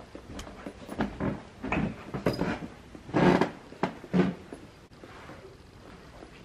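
Footsteps through a house and a door being opened: a run of thuds and knocks about half a second apart over the first four seconds or so, then quieter.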